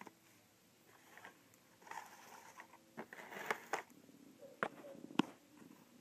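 Cardboard and plastic packaging being handled: rustling and crinkling through the middle, then two sharp taps near the end.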